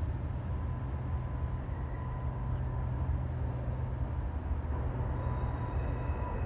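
Norfolk Southern freight train rolling past with a steady low rumble and faint thin ringing tones above it.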